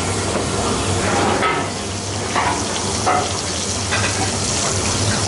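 Butter sizzling steadily as it melts and foams in a black steel frying pan over a gas flame, with a few brief louder pops. The butter is at the foaming stage, not yet browned.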